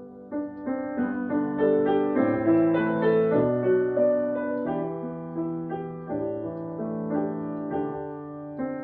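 Solo piano playing a slow, gentle piece of sustained chords and held notes in the low and middle register.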